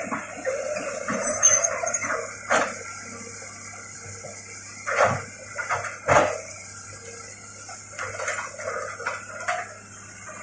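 Hitachi crawler excavator running as it tracks over cleared ground: a steady low engine hum under irregular clanks and cracks from the tracks and the debris beneath them, the loudest in the first couple of seconds and about five and six seconds in.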